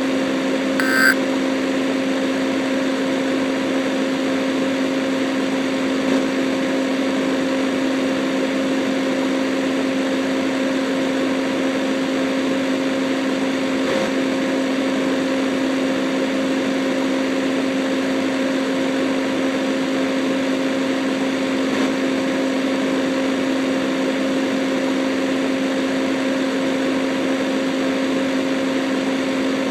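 Steady low electronic hum over a hiss of static, unchanging throughout. About a second in, a short burst of EAS digital data tones sounds, the last of three brief bursts.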